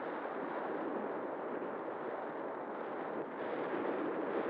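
Steady rush of air over the onboard camera's microphone on an XK A1200 RC glider in flight: an even, unbroken noise with no distinct whine or knock.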